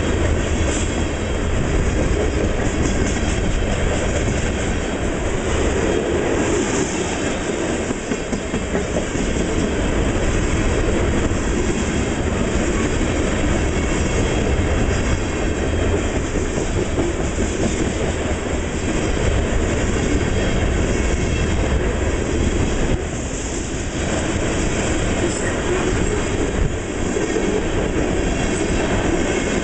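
Coal cars of a freight train rolling steadily past, steel wheels rumbling over the rails.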